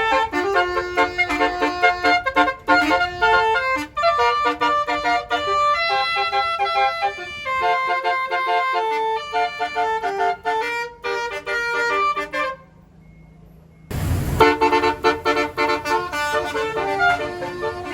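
A tour bus's multi-note basuri 'telolet' horn playing a fast melody of short blaring notes. It breaks off a little after two-thirds of the way through, and after a brief burst of noise the tune starts up again.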